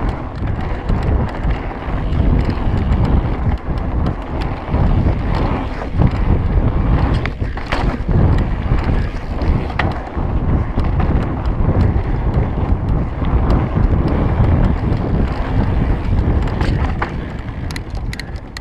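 Wind buffeting the microphone over the rumble of mountain bike tyres on a dirt trail, with frequent short rattles and clicks from the bike; it eases off near the end.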